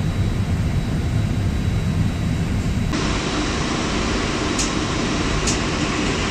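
CFM56-5B jet engine igniter plug sparking during an ignition system test: sharp snaps about once a second, starting about four and a half seconds in, over a steady rushing noise.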